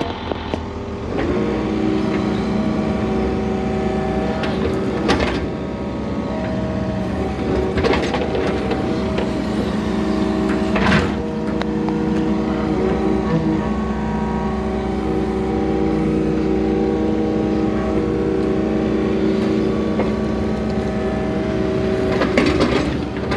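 Yanmar hydraulic excavator's diesel engine running steadily under digging load, its pitch shifting a little about a second in. A few sharp knocks and scrapes come through as the bucket works the trench soil.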